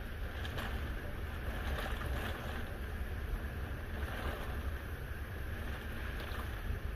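Hurricane wind and heavy rain heard from indoors through closed, double-thick hurricane windows: a steady, muffled rush with a deep low rumble underneath.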